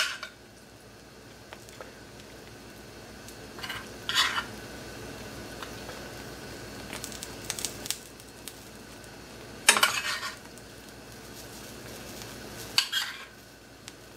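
Metal spoon clinking and scraping as it scoops crab sauce onto an omelette: a handful of short, sharp clinks a few seconds apart, over a faint steady sizzle from the omelette cooking in the pan.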